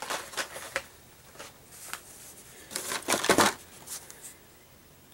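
Carded Hot Wheels cars being handled in a cardboard shipping case: plastic blister packs and card backs rustling and clacking against each other and the box in several short bursts, loudest about three seconds in.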